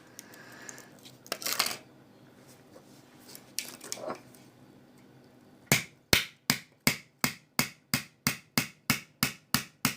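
A hammer driving a nail into a mobile phone: a few scrapes and knocks, then, about halfway through, a fast, steady run of sharp strikes, roughly three or four a second.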